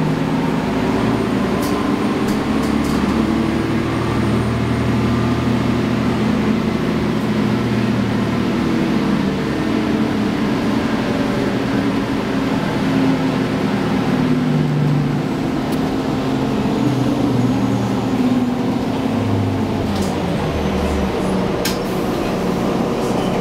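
Cabin sound of a 2010 Nova Bus LFS city bus under way: its rear-mounted diesel engine and transmission drone steadily, the pitch rising and falling as the bus changes speed. A few light rattles come near the end.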